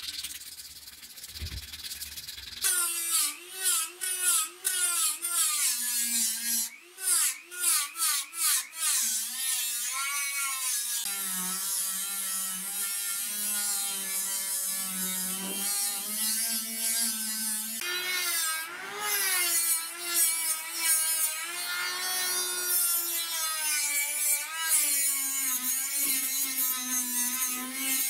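Sandpaper rubbing on the steel cleaver blade for a couple of seconds, then a handheld rotary tool with a small abrasive wheel starts up. Its whine keeps wavering up and down in pitch as the wheel is pressed into the steel.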